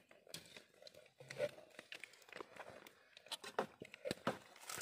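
Light, irregular rustling and crackling with scattered soft knocks, as crisp fried bread pieces are handled on a banana leaf.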